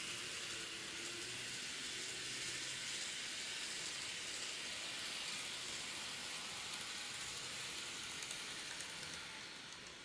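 N-gauge model train running along the track, a steady hissing rumble of wheels on rail and its small motor, with a few faint clicks late on. The sound starts abruptly and fades near the end as the train slows into the platform.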